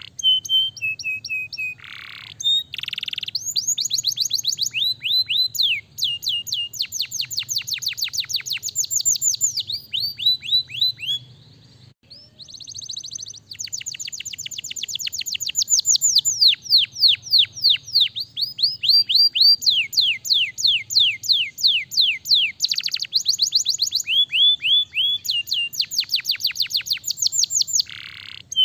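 Domestic canary singing a long song made of rapid trills, each a quick run of repeated falling whistled notes, switching from one trill to the next. There is a short pause about twelve seconds in.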